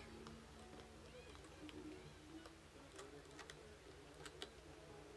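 Near silence with a sharp click at the very start, then scattered faint ticks and a faint murmur of distant voices.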